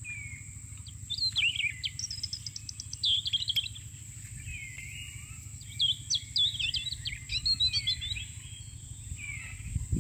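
Wild birds singing: repeated bursts of varied chirps and swooping whistled notes, with a quick run of rapid ticks about two seconds in. Under them run a steady high insect drone and a low rumble.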